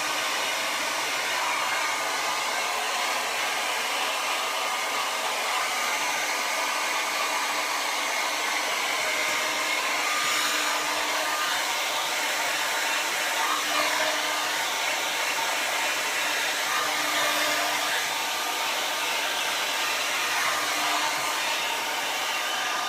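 Hair dryer with a silicone collapsible diffuser attached, running steadily as it blows air, an even rushing noise with a faint steady hum.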